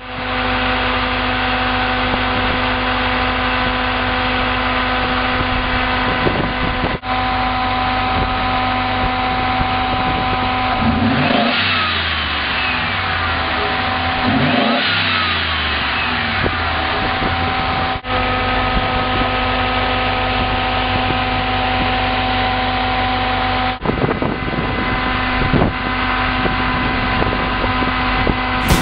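Chevy Ram Jet 350 small-block V8 idling steadily, revved twice about a third and halfway through, the revs rising and falling back to idle each time.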